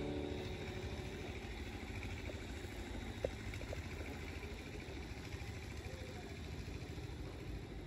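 Steady low rumble of vehicle noise, with one sharp click about three seconds in.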